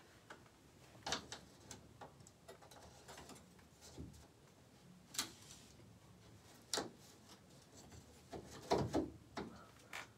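Scattered light knocks, taps and clicks at uneven intervals from things being handled, with a heavier thud and a few knocks near the end.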